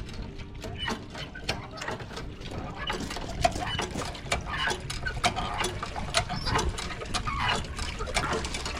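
Hand water pump being worked fast, its handle and linkage giving a quick, irregular run of clicks and clacks.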